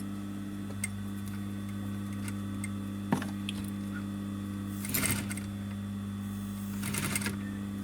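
Sewing machine stitching in two short bursts about two seconds apart, over a steady electrical hum, with a single sharp click about three seconds in.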